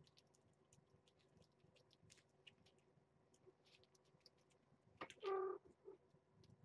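Cats and kittens eating soft food from a plate: faint wet chewing and licking clicks, then a single short meow about five seconds in.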